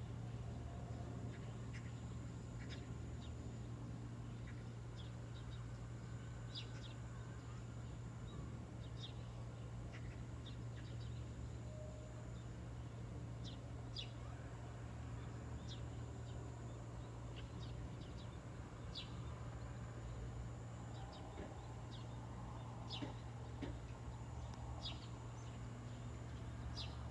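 Steady low wind noise with brief, high bird chirps scattered over it, each chirp a short separate call.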